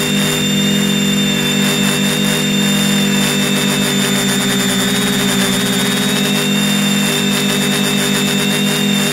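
Drone motors and propellers humming steadily, picked up by the camera on board. The pitch wavers briefly around the middle.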